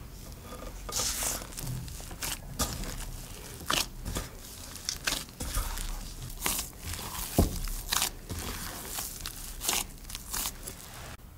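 Gloved hands kneading a sticky, shaggy potato-and-flour yeast dough: irregular squishing and tearing sounds as the dough is squeezed and pulled apart, with one sharper thump about seven and a half seconds in.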